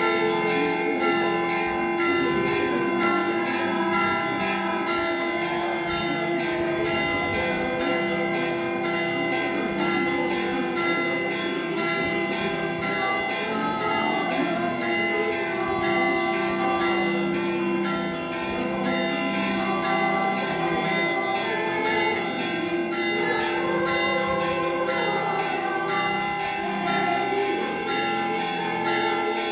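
Church bells ringing continuously: several bells struck over and over, their tones overlapping and ringing on.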